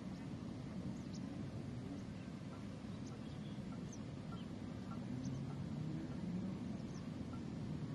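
Outdoor background: a steady low rumble with about eight faint, brief high chirps scattered through it, from distant small birds.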